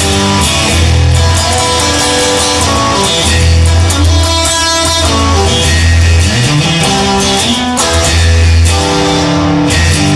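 Rock music led by guitars, with a heavy, sustained bass line and a bass note sliding upward about two-thirds of the way through.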